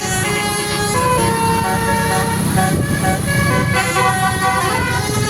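A Basuri multi-tone bus horn playing a tune of held notes that step up and down in pitch, with a short rising slide near the end, over a steady low rumble.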